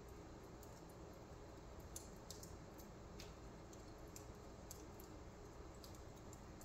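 Wood fire burning low in a fireplace, faintly crackling: a soft steady hiss with irregular sharp pops every second or so.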